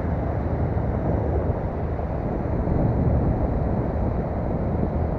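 Twin outboard motors on a fishing boat running steadily at speed, a low even drone with wind buffeting the microphone.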